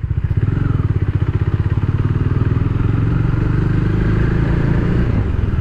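Bajaj Dominar 400's single-cylinder engine running as the motorcycle rides off at low speed, a steady, even exhaust beat.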